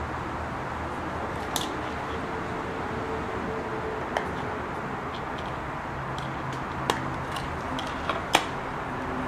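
A few light, sharp clicks and taps from a plastic AA battery holder and its batteries being handled, spaced a second or more apart and loudest near the end, over a steady background hiss and hum.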